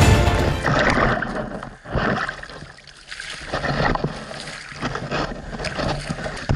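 Scuffing and scraping of a person crawling through sand and dirt close to a body-worn action camera's microphone, in irregular bursts.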